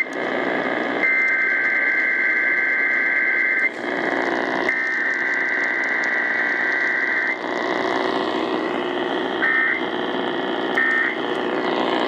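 Emergency Alert System SAME digital data bursts over radio static: two long screechy two-tone bursts, then three short bursts about a second and a half apart near the end, the pattern of header data followed by an end-of-message code.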